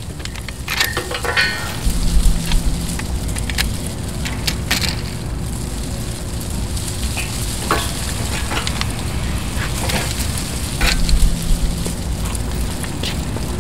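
Scattered clicks and rattles of a bicycle being handled and wheeled out of a bike rack, over a steady low rumble.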